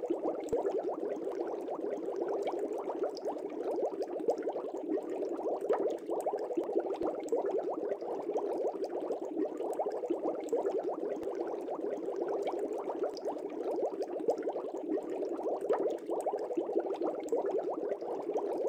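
Steady, dense, low bubbling of water that continues without a break.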